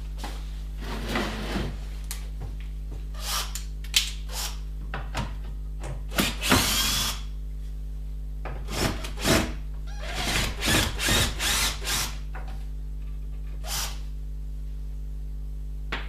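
Cordless drill-driver run in short bursts on the screws of a wooden chair frame's corner brackets, most bursts under a second, a longer run with a whine about six seconds in. A steady low electrical hum lies underneath.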